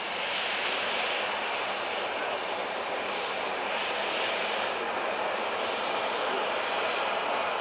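Boeing 787-8 Dreamliner's GE GEnx turbofan engines running at low taxi thrust: a steady rushing jet hiss that swells and fades slightly every second or two.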